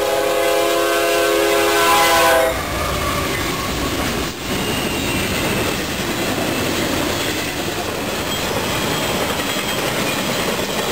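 Intermodal freight train cars rolling past at a grade crossing with a steady rumble and wheel clatter. A train horn sounds one steady multi-note chord that cuts off about two and a half seconds in, and a single sharp knock comes a little past four seconds.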